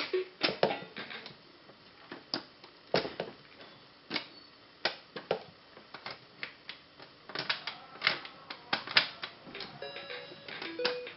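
Irregular sharp clicks and taps of an electronic baby toy being handled and its buttons pressed, with a few brief, faint electronic tones.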